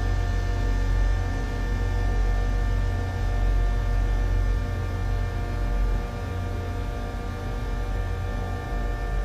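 Sustained electroacoustic drone made by slowing two film-soundtrack fragments down thousands of times: a dense bed of many held tones over a deep, wavering rumble, with the low rumble thinning out about six seconds in.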